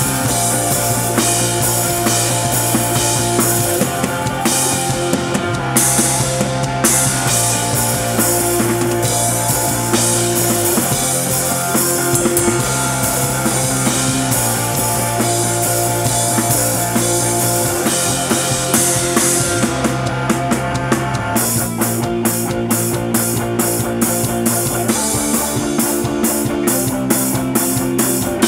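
Rock drum kit played along to a rock backing track, with kick drum, snare and cymbals over sustained bass and guitar. About two thirds of the way through, the continuous cymbal wash gives way to evenly spaced accented hits.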